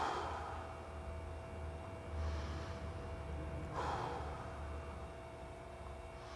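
A man's deep breathing during a held stretch, with breaths drawn in through the nose: three breaths about two seconds apart, over a faint steady hum.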